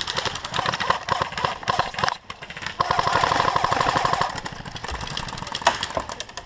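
Airsoft guns firing in rapid full-auto strings, a fast mechanical rattle of shots. It breaks off briefly about two seconds in, then comes back loudest for over a second.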